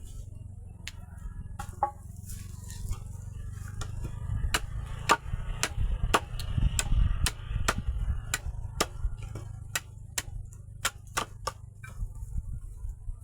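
Irregular sharp clicks and knocks, a few a second, over a steady low rumble.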